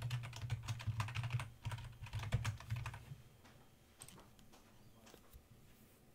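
Typing on a computer keyboard: a rapid run of keystrokes for about three seconds, then a few scattered single clicks.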